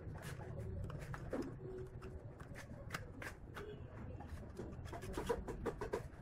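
Scattered light clicks and taps of metal parts being handled: a bolt and nut fitted through the hinge bracket of a square steel tube resting on a plywood board, with a quicker run of clicks about five seconds in. A low steady hum sits underneath.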